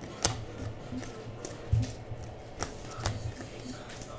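Baseball trading cards being flipped through by hand, one at a time off a stack, the cards sliding and snapping against each other. There are sharp clicks about three times and a few soft low thumps.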